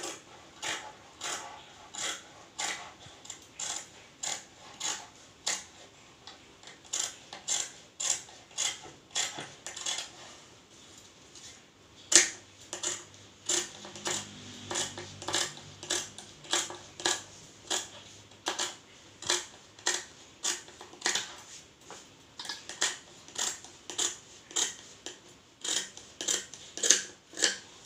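Fabric scissors snipping through four layers of silk, a steady run of crisp snips about two a second, with a short pause about ten seconds in.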